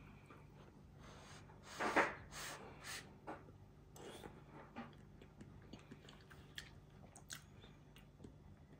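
Someone eating a spoonful of nikujaga stew: a brief breathy rush about two seconds in, the loudest sound, then quiet chewing with soft mouth clicks.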